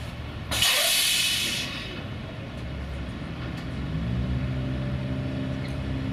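Volvo FH16 heavy-haul truck: a loud burst of compressed-air hiss about half a second in, lasting about a second, then its 16-litre six-cylinder diesel picks up revs a little and runs steadily.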